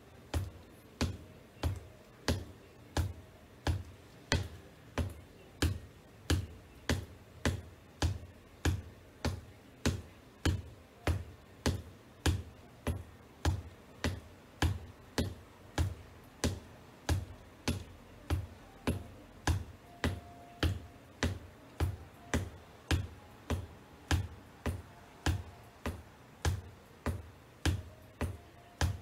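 Black wedge-heeled ankle boots tapping on a hardwood floor in a steady beat of about two taps a second, each a sharp knock with a low thud.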